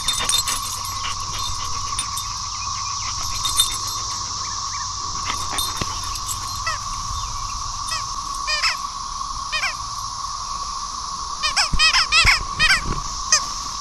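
Dog biting a rubber squeaky toy: about halfway in, single squeaks come a second or so apart, then a fast, loud flurry of squeaks near the end. A steady high-pitched drone sounds underneath.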